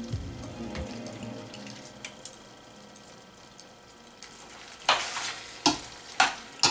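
Saffron water poured into a stainless steel pan of rice, lamb and potatoes, the liquid sizzling softly. About five seconds in, a slotted spoon starts stirring, with a few sharp scrapes and knocks against the metal pan.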